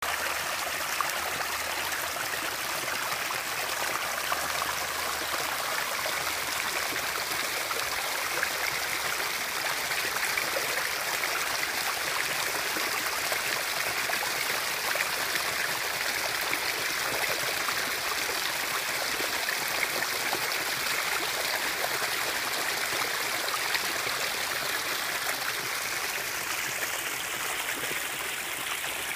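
Waterfall splashing steadily: an even rush of falling water, bright and hissing, with little deep rumble.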